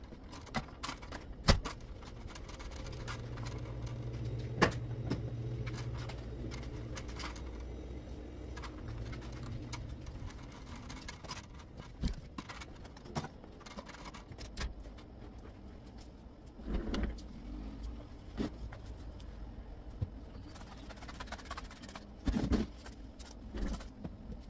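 Household handling sounds while tidying a bedroom: scattered knocks and bumps of things being picked up and set down, with a low steady hum for a few seconds around the middle of the first half.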